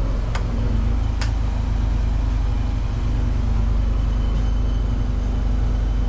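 Generator engine running steadily, a low drone that stays even in level, with two sharp clicks in the first second and a half.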